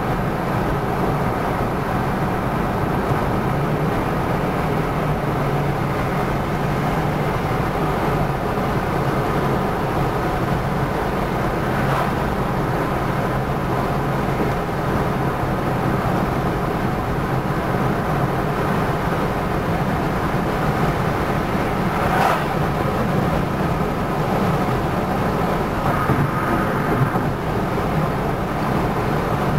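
Steady running noise of a car driving on a highway, heard from inside the cabin: engine hum with tyre and road noise. There is a brief tap about twelve seconds in and another about twenty-two seconds in.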